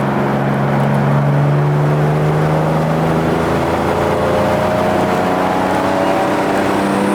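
Car engine heard from inside the cabin while driving. It holds a steady pitch, then from about three seconds in rises slowly in pitch as the car accelerates in gear.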